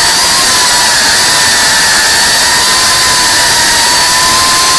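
GEPRC Cinelog cinewhoop FPV drone in flight: its motors and ducted propellers make a loud, steady whine over a hissing buzz, the pitch wavering only slightly.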